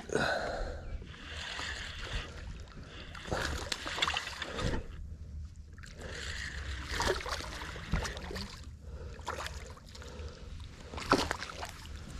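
Water splashing and scattered knocks and clicks around a fishing boat as a hooked spotted bass is fought and brought aboard.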